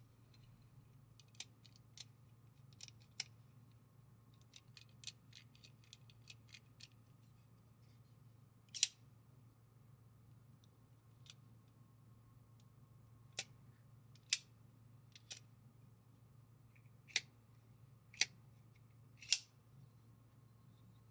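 SOG Kiku XR LTE folding knife being worked open and closed by hand, its XR crossbar lock and blade giving sharp metallic clicks. Lighter clicks come in two groups early on, then about seven louder snaps as the blade is swung open and shut. A faint steady hum runs underneath.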